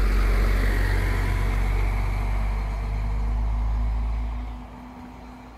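A motor vehicle passing close by on a road: steady engine hum and tyre noise that fades away about four and a half seconds in.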